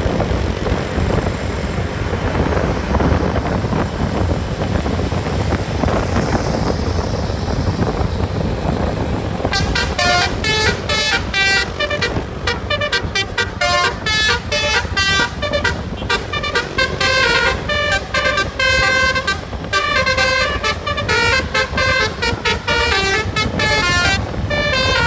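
Bus running with a steady engine and road rumble, then about ten seconds in a telolet multi-tone horn starts up, playing a fast tune of short, quickly changing notes over and over.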